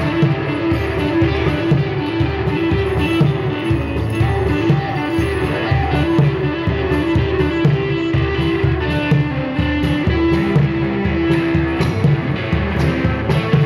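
Live instrumental music: an electric guitar plays a repeating figure of short notes over a steady pulse of low percussion.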